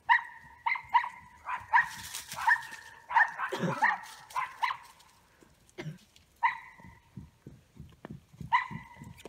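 A dog barking repeatedly: a quick run of about ten sharp barks over the first five seconds, then two more, spaced a couple of seconds apart.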